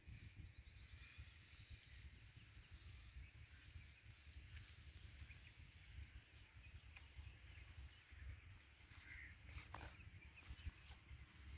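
Near silence: faint outdoor field ambience with a low rumble and a few faint bird chirps.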